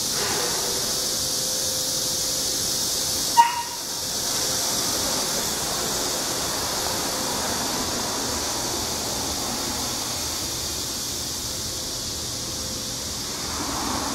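Steady high hiss, with one short, sharp, pitched blip about three and a half seconds in.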